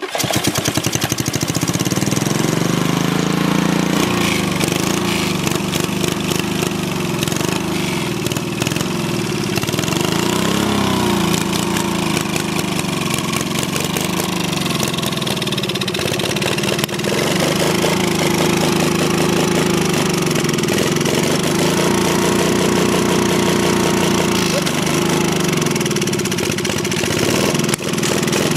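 SV150 four-stroke lawn mower engine running just after it starts, speeding up over the first few seconds and then surging up and down unevenly, which is typical of the engine struggling on diesel fuel.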